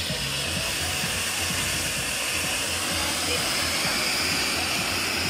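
A row of ground fountain fireworks spraying sparks with a steady rushing hiss.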